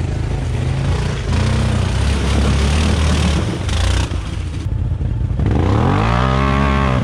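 ATV engine running under load, with a harsh noise over it for the first few seconds; near the end it revs up and falls back again.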